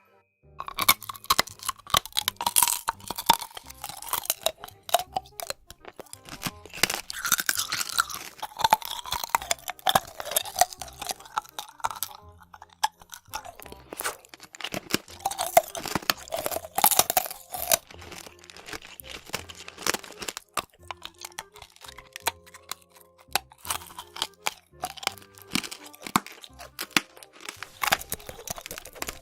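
Close-miked ASMR eating: dense, irregular crunching and chewing of crisp, brittle food, bite after bite.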